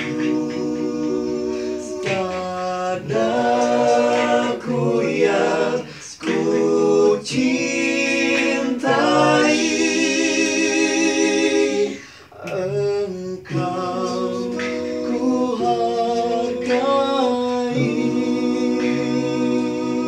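A group of six men singing a cappella in harmony, several voices holding chords together with no instruments. A long held chord swells about nine to twelve seconds in, then breaks off briefly before the singing resumes.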